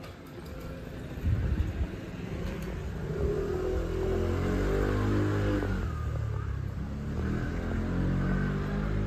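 A motor vehicle driving past on the street, its engine pitch falling as it goes by about four to six seconds in, with a lower engine hum continuing near the end.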